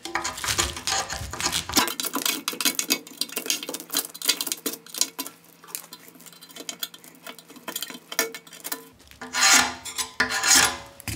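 A scraper blade scraping old wiper remains out of the wiper channel of a sheet-steel CNC way-cover section: quick, uneven rasping strokes of metal on metal, a few louder strokes near the end.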